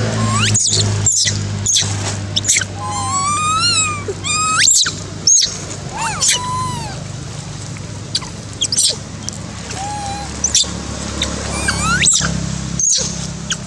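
Infant long-tailed macaques giving repeated high-pitched squeaks and whistling coos, short calls that rise or fall in pitch, over a steady low hum.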